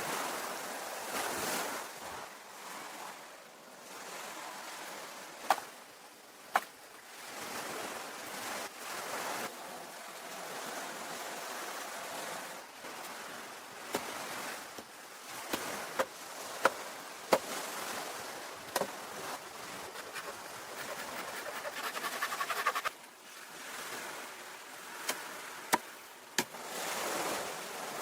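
Ocean waves washing on the shore, swelling and easing, with sharp knocks scattered through them. About two thirds of the way in, a hiss builds and then cuts off suddenly.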